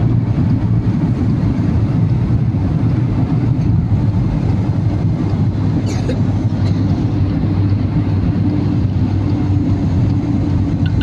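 Steady vehicle rumble of engine and road noise, an even low drone with no break.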